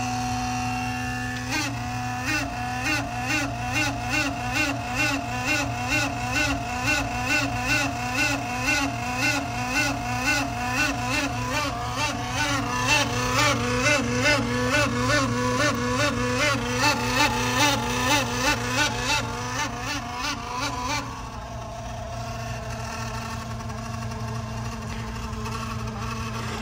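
Coolant pumps of a BMW S63TU V8 running during the cooling-system fill and bleed, with coolant flowing through. About a second and a half in, a loud rhythmic warbling whine starts, rising in pitch over and over about two to three times a second over a steady hum. It stops about 21 s in, leaving a steadier tone. The mechanic is unsure whether this loud noise is normal and suspects it could be a faulty water pump.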